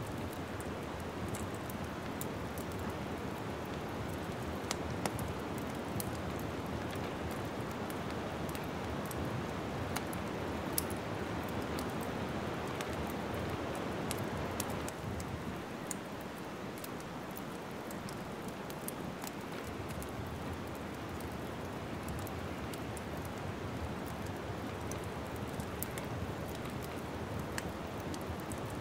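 Log fire crackling in a fireplace: a steady hiss with irregular sharp pops and snaps scattered throughout.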